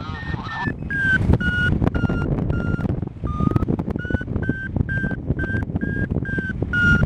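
Paragliding variometer beeping about twice a second, the pitch dipping about three seconds in and then rising again as it signals climb in a thermal, over wind rushing on the microphone.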